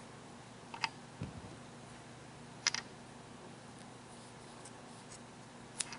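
A few faint, sharp clicks, three in all, and one soft low thump over quiet room tone, from the crochet hook and yarn being handled.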